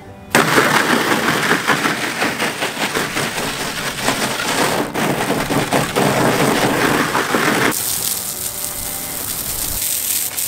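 Garden hose spraying water hard onto the ground and pavers. About eight seconds in, the sound turns to a thinner, higher hiss.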